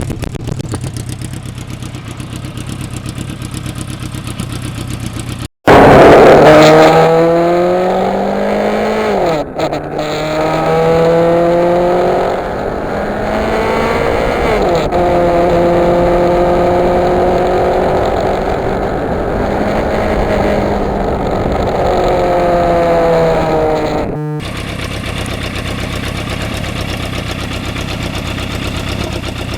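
Yamaha FZR motorcycle's inline-four engine on the move. A steady low hum is cut off about five seconds in by a much louder engine pulling up through the gears, its pitch climbing, dropping at a shift and climbing again, then holding steady at a cruise and easing off. Near the end the steady low hum returns after another sudden cut.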